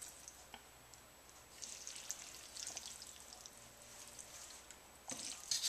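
Faint crackling and soft scraping of stir-fried rice noodles and vegetables being moved out of a wok onto a plate, with a louder burst of scraping near the end.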